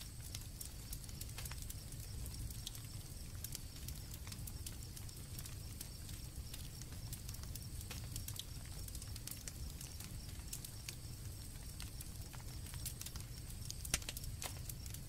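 Campfire crackling with frequent small sharp pops and one louder pop near the end, over a steady low rumble, with crickets chirping steadily and faintly in the background.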